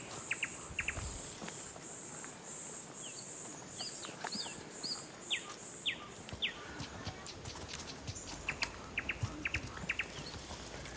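Forest ambience: a high-pitched insect buzz pulsing about twice a second, which stops about two-thirds of the way in. Short downward-sweeping bird chirps come in the middle, with scattered sharp ticks near the start and again near the end.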